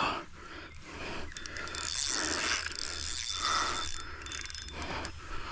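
Fishing reel ratcheting in uneven pulses while a hooked carp is played on the line.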